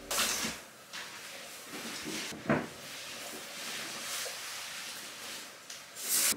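Household handling noises, like cupboards or drawers being worked: a short rustle at the start, a sharp knock about two and a half seconds in, and a louder rustle near the end.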